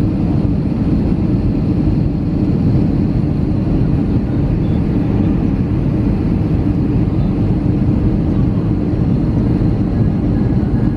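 Steady cabin roar inside an Airbus A320-214 descending on approach to land: its CFM56 jet engines and the rush of air over the fuselage, a low, even rumble with no change in level.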